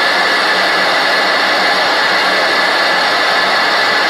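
A loud, steady hissing noise with no rhythm or pitch changes and a faint high tone running through it.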